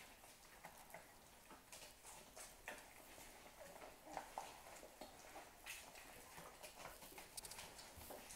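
Nursing puppies suckling: faint, irregular wet clicks and smacks, with a short small squeak about four seconds in.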